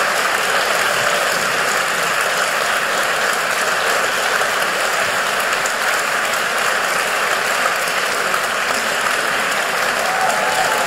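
Theatre audience applauding steadily in sustained clapping.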